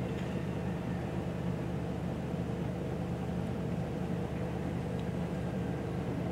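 Steady low hum of urban background noise, even throughout, with no distinct calls or knocks.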